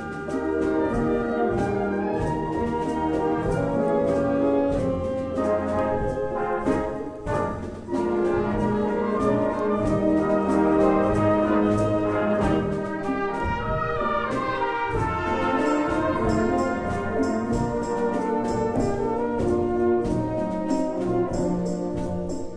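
Concert wind band playing a rumba, brass carrying the melody over a steady percussion beat.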